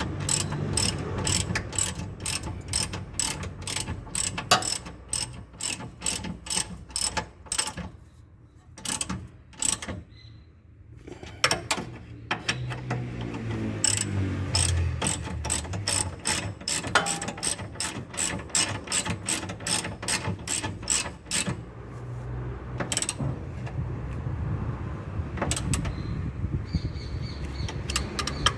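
Hand ratchet wrench clicking in rapid even strokes as the clamp bolts of a rear stabilizer bar bushing are tightened, with a pause partway through and fewer clicks near the end.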